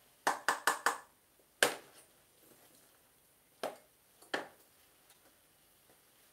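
Wooden spoon knocking against a stainless steel pot while stirring pan-fried cabbage: a quick run of four knocks, then single knocks at about one and a half, three and a half and four and a half seconds in.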